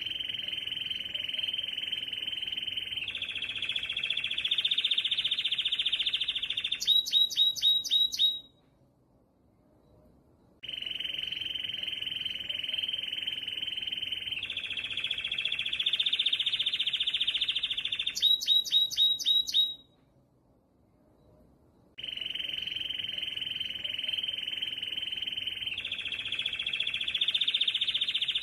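Canary singing a long, rapid trill that steps up in pitch partway through and ends in about six loud, sharp chirps, followed by a pause of about two seconds. The same phrase repeats identically, about every eleven seconds.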